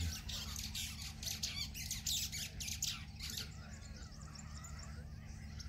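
Bird giving rapid, harsh chattering calls for about three and a half seconds, then falling quieter.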